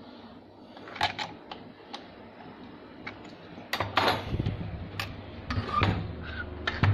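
Scattered metallic clicks and knocks from work on a Singer 834 sewing machine's mechanism, getting louder and more frequent from about four seconds in as the machine head is tilted back upright onto its base.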